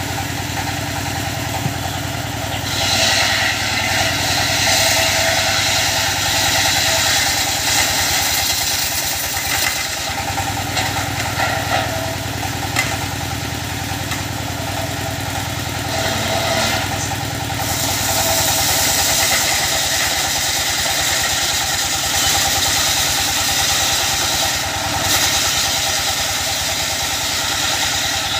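Engine-driven circular saw bench running steadily while a teak log is ripped into boards; the cutting grows louder and harsher twice, each time for several seconds, as the blade bites into the wood.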